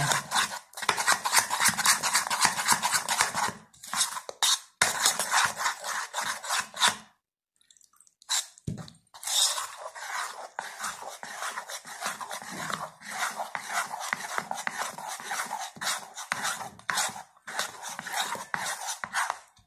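Besan batter being stirred briskly in a ceramic bowl, a rapid run of wet scraping strokes against the bowl, worked to keep lumps from forming. It stops briefly about seven seconds in, then carries on.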